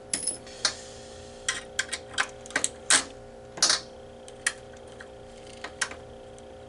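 Small flathead screwdrivers prying at the metal X-clamp on an Xbox 360 motherboard: a dozen or so irregular sharp metal clicks and short scrapes as the clamp is worked loose, over a steady low hum.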